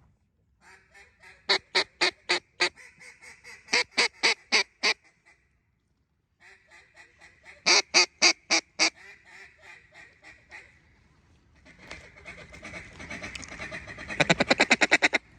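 Mallard duck call blown by a hunter: three strings of loud, sharp quacks, then a fast, rapid-fire feed-call chatter near the end.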